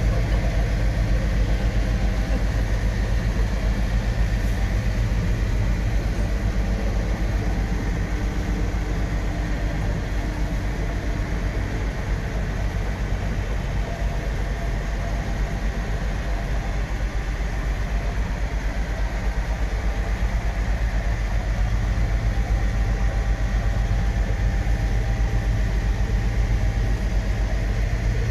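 Motor boat's inboard engines running at a steady speed while under way, heard from inside the wheelhouse: an even low drone with a steady hum that doesn't change.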